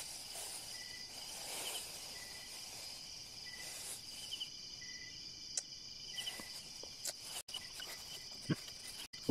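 Night insect chorus: a steady high trill with short chirps repeating underneath. A few soft clicks and taps from eating are mixed in.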